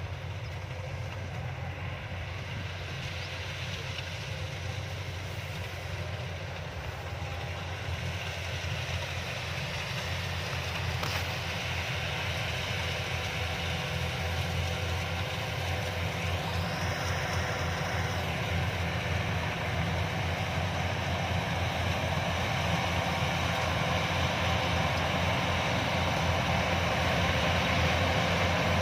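Yanmar YH-850 combine harvester running steadily, its engine and threshing machinery drone rising in loudness through the second half as it draws closer.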